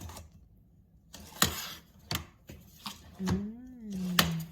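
A handful of sharp knocks and clicks, the taps and clatter of hardware and wooden parts being handled and fitted. A short hummed voice sound, rising then falling in pitch, joins about three seconds in.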